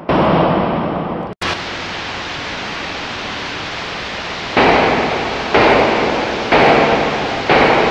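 Loud static-like noise from an experimental noise track. A noisy blast dies away at the start and cuts out briefly about a second and a half in. A steady hiss follows, and in the second half four sudden noise bursts hit about a second apart, each fading quickly.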